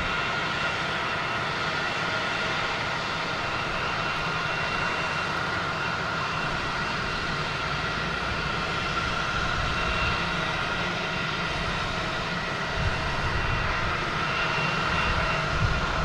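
Jet airliner's engines running as it comes in to land: a steady rushing noise with a high whine held at a constant pitch, growing slightly louder near the end.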